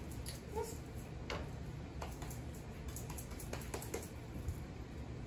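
Soft, irregular clicks and light squelches of hands kneading raw ground meat in a stainless steel mixing bowl, over a low room hum.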